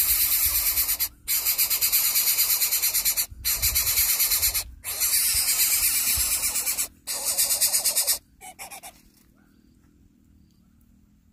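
Nestling bird in its grass nest begging with loud, harsh, hissing rasps in long runs broken by brief pauses; the calls stop suddenly about eight seconds in and the chick falls quiet.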